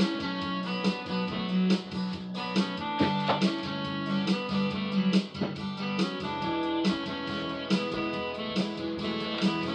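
Guitar-led music with a steady rhythm of plucked notes and chords.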